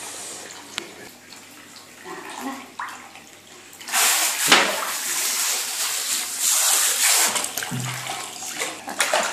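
Water spraying from a handheld shower head onto a wet Persian cat in a bathtub, a rushing hiss that starts suddenly about four seconds in and eases off after about three seconds.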